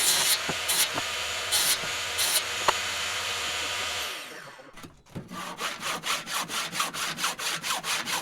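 A circular saw, rigged upside down as a makeshift table saw, runs steadily through pine, stops about four seconds in and winds down. Then comes a quick run of rasping strokes on the wood, about four a second.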